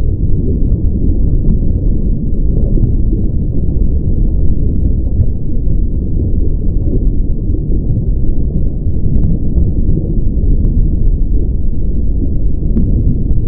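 Loud, steady low rumble of machinery running without pause, with a few faint clicks on top; it is the constant noise of the equipment working on the house's water damage.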